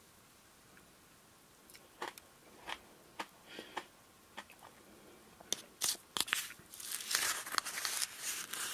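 Metal spoon digging into the icy soda-flavoured shaved ice and vanilla lacto-ice of a Glico Smile Plus Soda Float cup. Scattered crunches and clicks start about two seconds in and become a denser run of crunchy scraping over the last few seconds.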